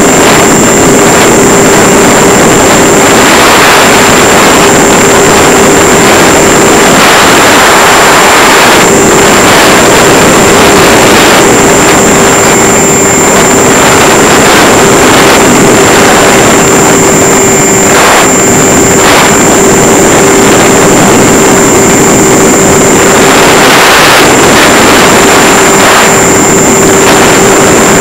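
Loud, steady drone of a Multiplex EasyStar RC plane's electric motor and propeller in flight, holding one pitch with a high thin whine above it, heard from a camera strapped to the plane's belly, with heavy wind rush over the microphone.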